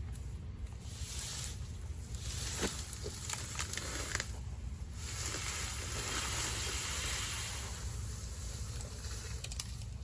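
Wind rumbling steadily on the microphone, with a hiss that swells and fades a few times and a few faint clicks.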